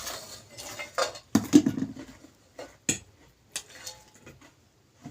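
Eating utensils clinking and knocking against a dish, several short irregular knocks and clicks, the loudest about a second and a half in.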